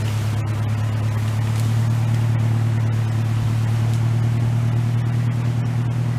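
An engine running steadily at a constant speed, a low even drone.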